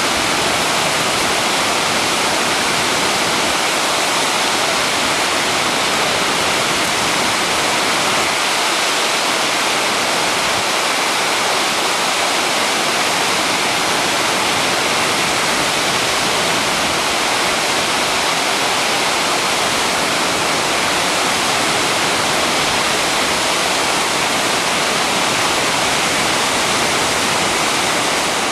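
Steady rush of falling water from a partly frozen waterfall, an even noise without a break.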